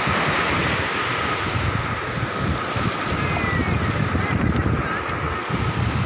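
Sea waves washing in, with wind buffeting the microphone in uneven low gusts.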